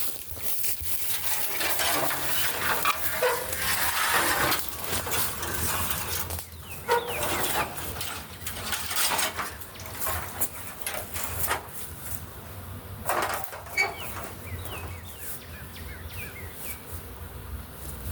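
Irregular rustling and clattering, like handling and footsteps, over the steady buzz of a honey bee swarm, with a few bird chirps.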